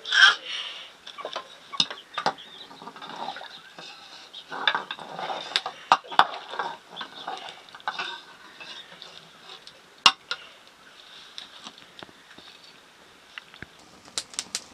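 Metal utensils and cookware clinking and scraping against pots and dishes at an irregular pace, with a few sharper clanks.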